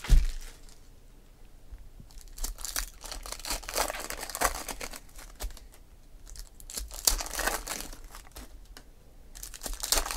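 Foil wrappers of football trading card packs crinkling and tearing as they are opened and handled by hand, in irregular spells of crackling with short pauses between.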